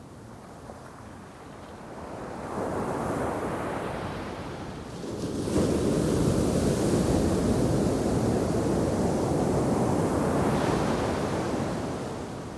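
Shore-break waves crashing on the beach. A smaller wave breaks about two and a half seconds in, and a bigger one crashes about five and a half seconds in. The bigger wave rushes on for several seconds, then fades near the end.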